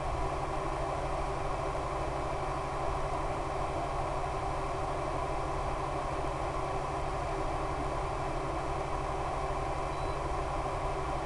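Electric motor and propeller of an RC plane running at steady cruise throttle: a constant drone of several held tones over a hiss of rushing air, heard from on board in flight. The motor is an E-flite Power 10 brushless outrunner turning an 11x7 APC propeller.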